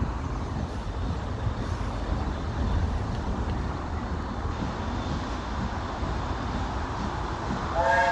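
BR Standard Class 4MT steam locomotive approaching, heard as a steady low rumble. Near the end its whistle sounds loudly, a held blast of several steady tones together.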